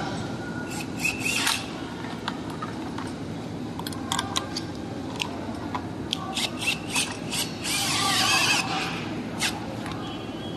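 Hand handling of electric-scooter parts during reassembly: scattered clicks, taps and rubbing of metal and cable, with a brief wavering squeak about eight seconds in, over a steady low hum.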